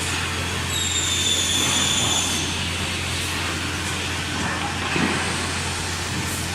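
Six-sided CNC boring machine running in a woodworking shop: a steady mechanical hum with a high spindle whine from about a second in to just past two seconds, and a short knock near five seconds.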